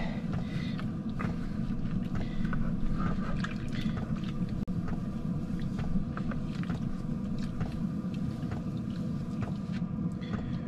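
Water sloshing and splashing in a plastic washing-up bowl as a plastic plate is scrubbed by hand, with small irregular clicks and knocks of the plate against the bowl. The plate is lifted out dripping near the end, and a steady low hum runs underneath.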